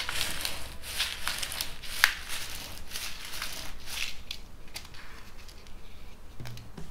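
Black cloth pressed and rubbed by hand into a tray of granular cat litter: a dry crunching and rustling of the granules, with one sharper click about two seconds in, easing off after about five seconds.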